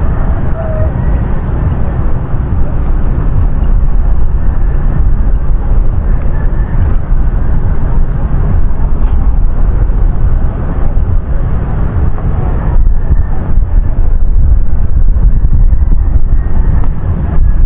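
Wind buffeting an action camera's microphone: a loud, steady low rumble.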